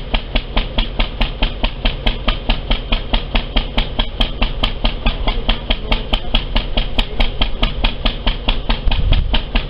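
Portable generator engine running steadily, with a sharp regular ticking about five or six times a second over a low hum.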